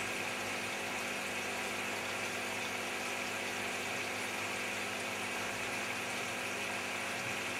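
Steady hum and hiss of aquarium equipment, an air pump running the sponge filters, with an even low hum under a constant hiss.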